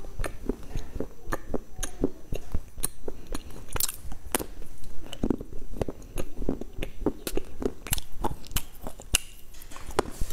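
Close-miked biting and chewing of a chocolate-coated snack: a stream of irregular crisp snaps and mouth sounds.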